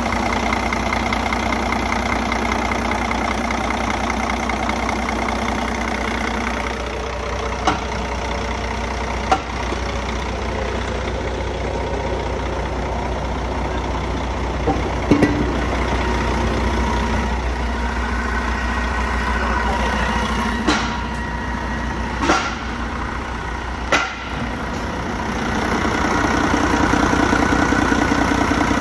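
Mercedes-Benz MBE4000 inline-six diesel engine idling steadily, with a few sharp clicks and knocks over it. The idle grows a little louder near the end.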